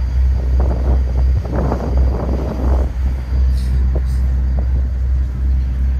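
Steady low drone of a ferry's engines, heard from its deck, with uneven noise over it in the first few seconds.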